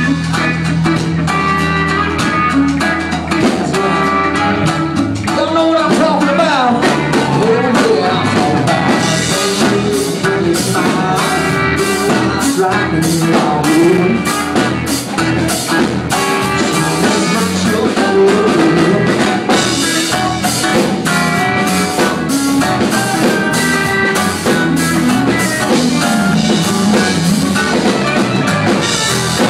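Live country-rock band playing an instrumental break: electric guitar lead with bent notes over a steady drum beat and bass.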